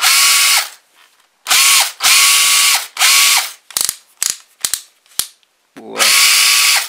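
DeWalt 18V cordless hammer drill/driver, running on a rebuilt 18650 lithium-ion pack, run in four short trigger bursts, its motor whining up to speed and winding down each time. Between the second-to-last and last bursts comes a run of sharp clicks as the collar behind the chuck is turned through its detents.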